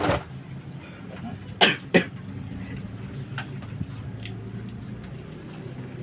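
A person coughing twice in quick succession, about a second and a half in, over a low steady hum.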